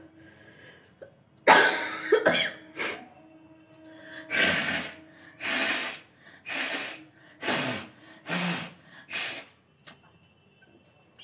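A woman with a cold sneezing and forcefully blowing air out through her nose. A loud burst comes about a second and a half in, followed by a couple more, then a run of six strong puffs at about one a second.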